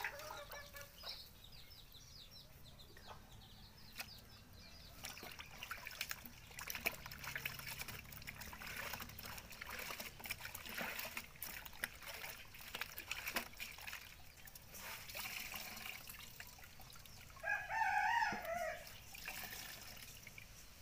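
Faint trickling and dripping of kunu zaki being squeezed through a cloth filter bag into a basin, with scattered small knocks. Near the end a rooster crows once, the loudest sound.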